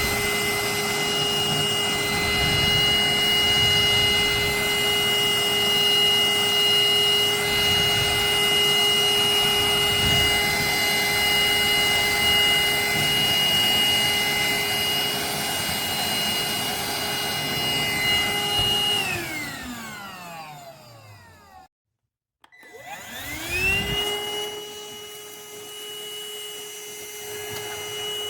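Anktel PowerClean 2400 cordless handheld vacuum cleaner running with a steady whine, winding down about 19 seconds in, stopping briefly, then spinning back up to full speed.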